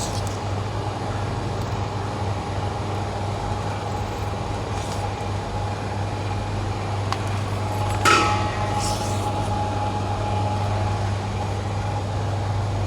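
Steady low mechanical hum of running machinery, with a faint steady whine above it and one short hiss-like burst about eight seconds in.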